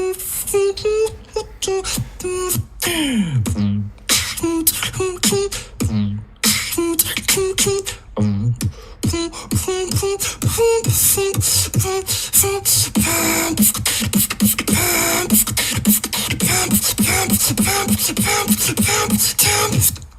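Human beatboxing: a fast run of vocal kick-and-snare clicks with short hummed notes in rhythm, and a long downward-sliding vocal sweep about three seconds in.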